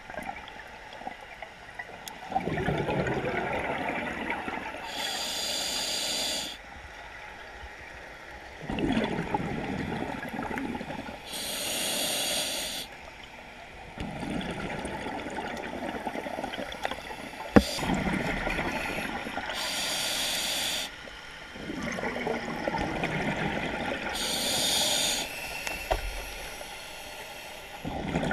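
Scuba diver breathing through a regulator underwater: four breaths, each a short hissing inhale followed by a longer burble of exhaled bubbles. A single sharp click a little past halfway.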